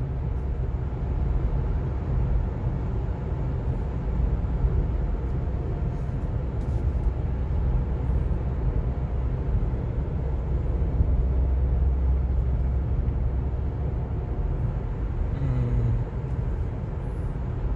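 Proton X70's road and engine noise heard inside the cabin while cruising through a road tunnel: a steady low rumble.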